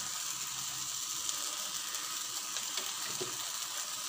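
Thin rava dosa batter sizzling steadily on a hot non-stick pan, with a few faint crackles, as it starts to fry.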